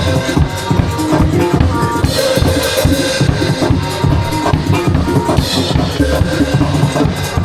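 Music with a driving drum-kit beat and heavy bass drum.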